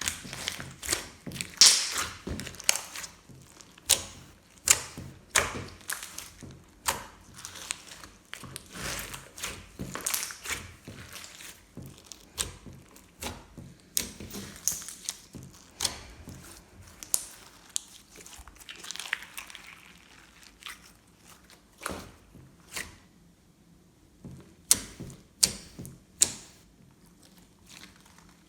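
Glossy slime being squeezed, poked and stretched by hand, giving a string of irregular sticky clicks and air-bubble pops with soft crackling between them.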